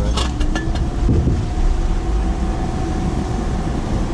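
Chevrolet Niva's four-cylinder petrol engine and drivetrain running steadily at low speed, heard from inside the cabin. A few sharp knocks come in the first half second as the car goes over the rough track.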